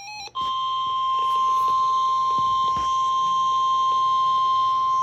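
NOAA Weather Radio Emergency Alert System broadcast: the end of a short warbling SAME data burst, then the steady single-pitched 1050 Hz warning alert tone, a long unbroken beep over faint static hiss. It signals that a warning, here a tornado warning, is about to be read.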